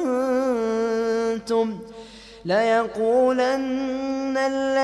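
A man reciting the Quran in melodic tajweed, drawing out long held notes. He breaks for a breath about two seconds in, then resumes on a rising note.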